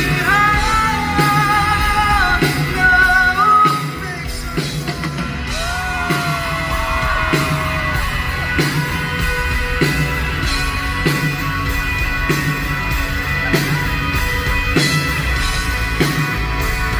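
Live rock band playing through a hall PA: long held wordless vocal notes in the first few seconds and a sliding sung note about six seconds in, over guitars and a steady drum beat that carries on after the singing stops.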